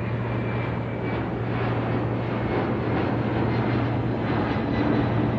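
Small plane's engine droning steadily with a constant low hum as the plane flies in, growing a little louder near the end.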